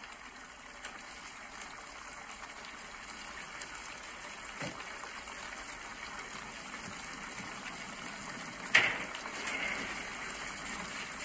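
Sliced mushrooms sizzling and bubbling in a frying pan just after fish sauce has been poured in, a steady hiss that grows slowly louder. A sharp knock about nine seconds in.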